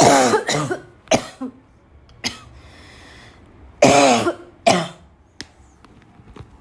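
A person's choking, barking cough in two fits: two or three harsh, voiced coughs at the start, then two more about four seconds in.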